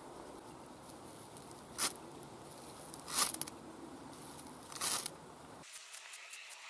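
Three quick rasping scrapes of a Victorinox Hunter's wire stripper struck down a Firefly ferrocerium rod to throw sparks onto a feather stick, the second the loudest. Near the end faint light clicks follow.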